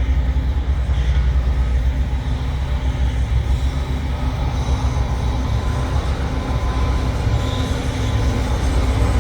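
Loram rail grinder train running on the mainline, its diesel engines making a steady, heavy low rumble.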